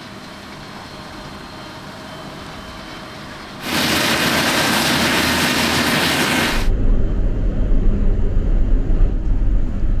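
Nexat combine harvester working through standing wheat: steady machine noise that jumps suddenly much louder, with a strong hiss, about three and a half seconds in, then changes to a deep low rumble near seven seconds.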